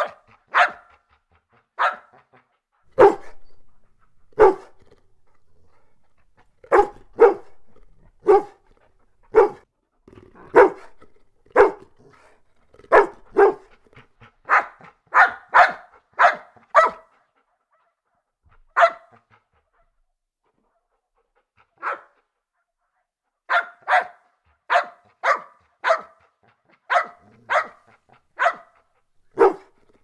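Golden retrievers barking: a long series of single barks, mostly about a second apart and coming quicker in runs, with a pause of about three seconds about two-thirds of the way through.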